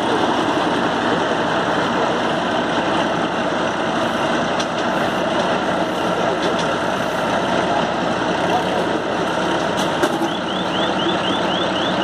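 Massey Ferguson 7250 DI 50 hp tractor running steadily under load, powering an Agristar round baler as it picks up straw. About ten seconds in, a rapid series of short high chirps starts, about four a second.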